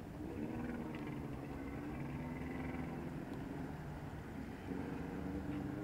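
Motorboat engine running under way over water and wind noise, its note wavering up and down.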